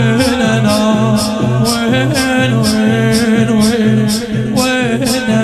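A male voice sings a long, drawn-out, wavering line of a Shia latmiya (mourning chant) over a steady beat of about two to three strokes a second with a pulsing low bass.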